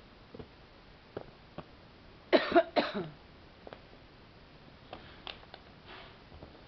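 Two short, loud coughs about half a second apart, with faint clicks of a dog gnawing a bone before and after.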